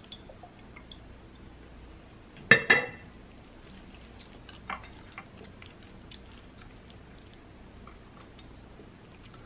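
A glass hot-sauce bottle set down on the serving tray: a short double knock with a little ringing about two and a half seconds in. Faint clicks of handling food follow.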